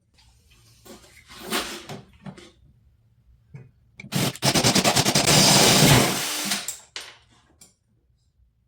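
Ryobi drill drilling out an old rivet holding a snowmobile hood latch, running for about three seconds from about four seconds in. Lighter clatter of handling before it.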